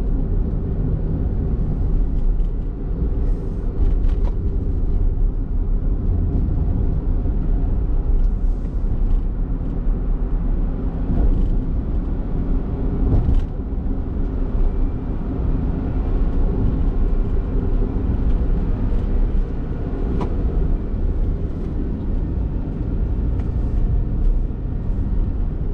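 Honda kei car driving at steady speed: a continuous low rumble of engine and road noise, with an occasional faint knock.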